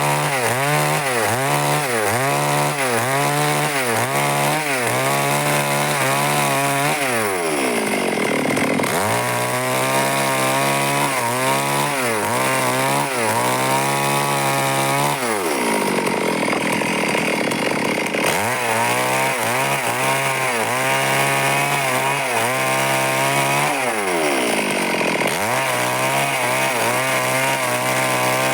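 Stihl chainsaw cutting wood under load, its engine pitch wavering about twice a second. Three times it eases off toward idle, then revs back up into the cut.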